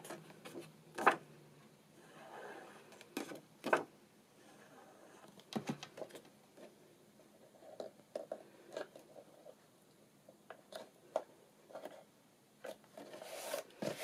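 Card and paper being handled and pressed down on a tabletop: a few sharp taps and clicks, loudest in the first few seconds, then softer ticks and light rustling as the panel is smoothed flat.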